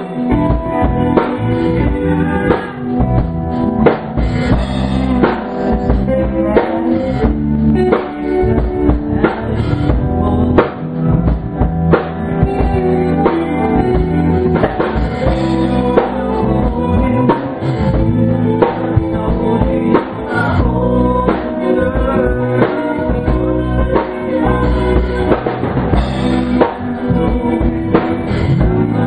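Live rock band jamming: electric guitars playing over a full drum kit, with steady bass drum and snare hits.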